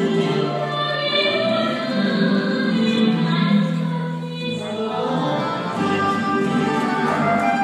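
Girls' guitar ensemble playing live, several guitars together under a sustained, choir-like sung melody.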